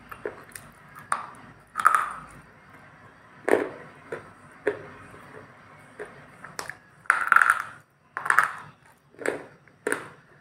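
Close-miked chewing of raw salad vegetables and fruit: short, irregular crunches and wet mouth smacks about once a second, loudest in a cluster about seven seconds in.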